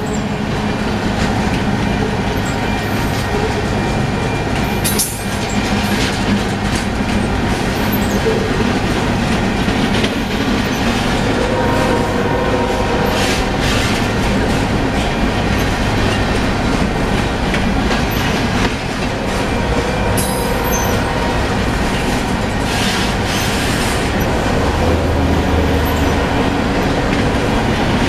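Union Pacific mixed freight train's cars, covered hoppers and boxcars, rolling past at speed: a steady loud rumble of steel wheels on rail with a clickety-clack over the rail joints.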